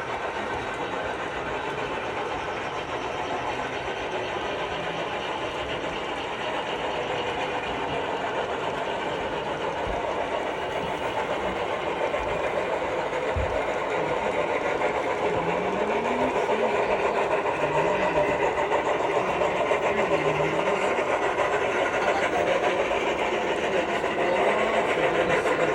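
A train running, a steady mechanical noise that grows slowly louder.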